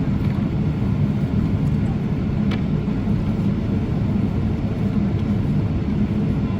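Steady, loud low rumble of a Boeing 777-300ER's GE90-115B turbofan engines and airflow, heard from inside the cabin, with a single faint click about two and a half seconds in.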